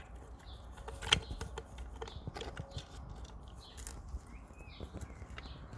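Light metallic clicks and taps of small parts being handled while reassembling a CAV Minimec diesel injector pump, with one sharper click about a second in.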